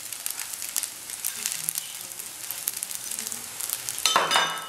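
Rice with sausage, bacon and egg sizzling and crackling in a pot over the heat while shoestring potato sticks are sprinkled on top. A short, louder sound comes about four seconds in.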